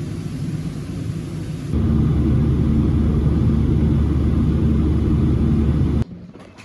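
Loud, steady, low rumbling noise that steps up louder about two seconds in, then cuts off suddenly near the end.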